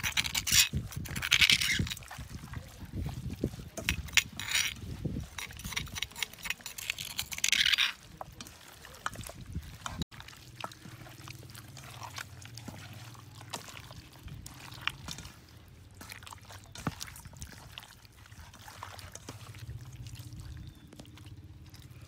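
Wet squelching and slapping of hands kneading chopped raw duck with a seasoning paste in a stainless steel bowl, with clicks of meat and fingers against the bowl. Busy and loud for the first eight seconds, quieter and sparser after a break about ten seconds in.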